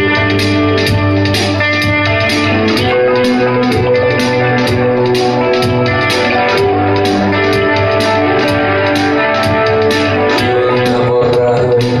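Live indie rock music: an electric guitar plays held notes over a steady beat, with a high tick about four times a second and a sustained low bass.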